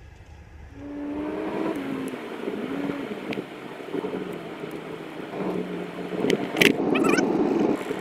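A car pulling away and driving, heard from inside the cabin: engine and road noise swell about a second in and then run steadily, with a few short clicks near the end.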